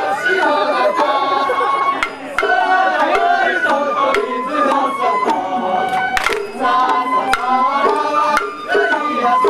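Sawara-bayashi festival float music: a high bamboo flute plays a wavering, sliding melody over taiko drum strokes, with a couple of sharp strikes cutting through.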